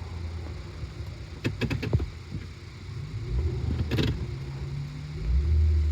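2004 Acura MDX's 3.5-litre V6 running under way during a U-turn, heard from inside the cabin: a low engine and road hum that rises about halfway through and gets louder near the end as the car accelerates. A quick series of sharp clicks comes about two seconds in, and another about four seconds in.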